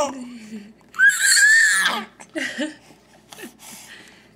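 Baby squealing: a short falling cry at the start, then a loud, high-pitched squeal lasting about a second, followed by a few short, softer vocal sounds.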